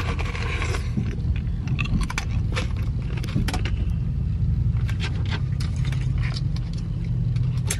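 Ice cubes being crunched between the teeth, a string of sharp irregular crunches, over the steady low rumble of a car.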